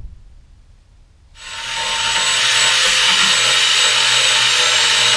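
Handheld steam cleaner hissing steadily as its nozzle is worked over the rusty wheel well. The hiss comes on about a second and a half in, swells quickly and holds loud.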